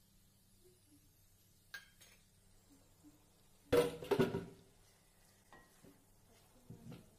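Wooden spatula scraping and knocking against a steel kadai while stirring okra masala, with the loudest clatter a little past halfway and a few lighter scrapes after.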